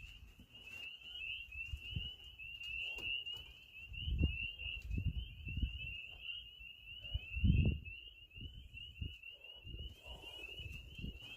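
A constant chorus of high, rapidly repeating chirps from many small calling animals. Low thumps and rumbles on the microphone come and go beneath it, the strongest about two thirds of the way in.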